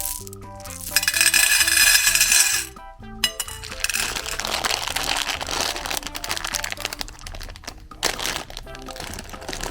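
Meat grinder crunching and crushing hard candy, with clinking and cracking as the pieces are ground, in a loud burst about a second in and then steadier crunching. Background music plays throughout.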